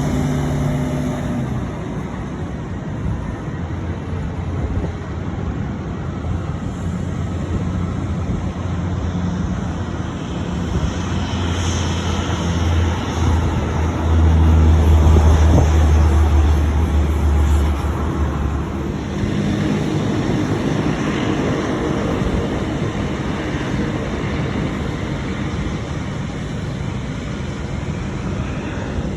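Jet airliner engine noise mixed with road traffic, a steady low rumble that swells to its loudest about halfway through, then eases off.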